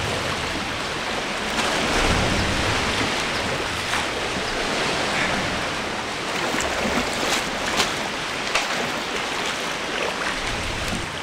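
Ocean surf washing and rushing steadily around the rocks, a little louder about two seconds in, with a few sharp light clicks about two-thirds of the way through.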